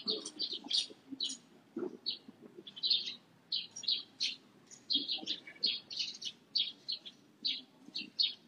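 Many small birds chirping: short, high chirps several times a second, overlapping, from a flock of birds calling in the morning.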